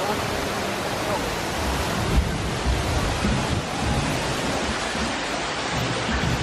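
Steady rushing noise with uneven low rumbling underneath.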